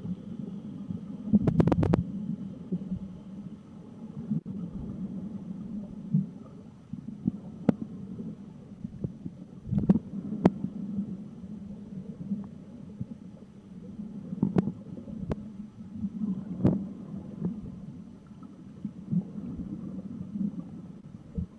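Muffled underwater rumble picked up by a camera in a waterproof housing as it moves through the water, with scattered sharp clicks and knocks on the housing; a quick run of knocks about one and a half seconds in is the loudest.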